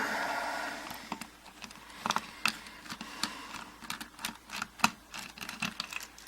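A tight screw in a small aluminium padlock being turned out with a screwdriver: a rough scrape for about the first second, then scattered light metal clicks as the tool and lock parts are handled.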